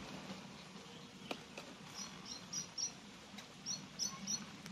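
A small bird chirping: a quick run of four short, high chirps about two seconds in, then three more near the end. A few light clicks of a knife against the clay tajin dish come in between.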